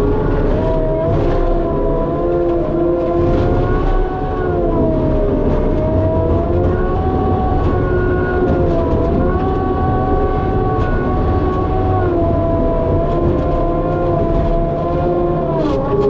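Skid steer running a Harley rake (power rake) attachment: a steady engine and hydraulic whine whose pitch sags and recovers several times.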